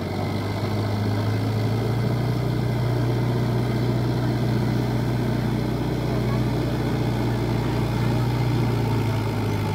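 Mahindra tractor's diesel engine running steadily under load as it pulls a rotary tiller through a flooded paddy field.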